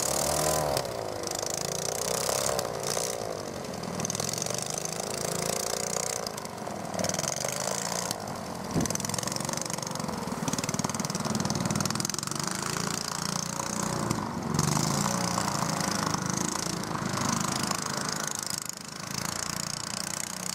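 Twin-engine tiller air-propulsion unit of an aeroboat (SAPSAN-18B-2D: two small petrol engines, 18 hp together, turning a 1250 mm wooden propeller) running warmed up under way. The engine note rises and falls again and again as the revs change.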